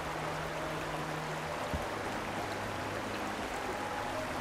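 Shallow stream running over rocks and gravel, a steady rush of water.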